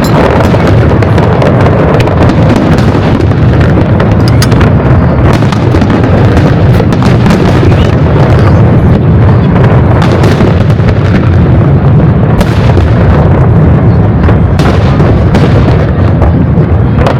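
Aerial fireworks going off in a dense, continuous barrage: many booms and crackles overlapping with no break, very loud throughout.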